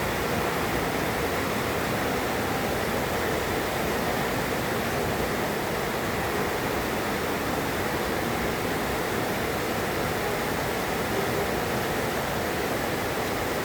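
Heavy rain falling steadily, a constant even hiss with no thunder claps.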